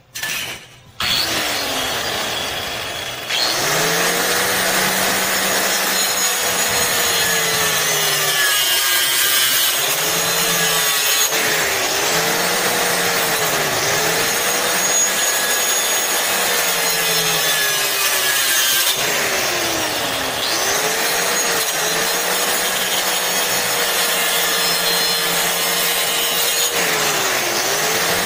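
Hand-held disc saw starting up, then crosscutting a wooden door-jamb board to length. The motor's whine sags and recovers again and again as the blade bites into the wood. About twenty seconds in it slows more deeply for a moment and picks up again.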